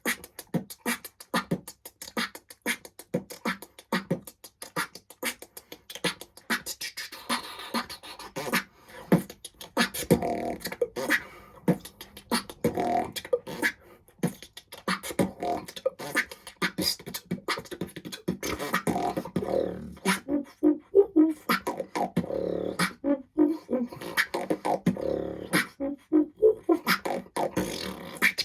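Solo beatboxing: a man making drum sounds with his mouth, a fast rhythmic stream of kick, snare and click strikes. Sparse hits at first, then from about ten seconds in a denser groove with pitched vocal tones woven between the strikes.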